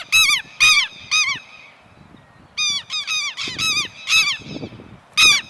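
Southern lapwings calling in alarm: loud, harsh, repeated calls in quick series, a pause of about a second in the middle, then another rapid run. The calls come from a pair agitated by a person near their nest.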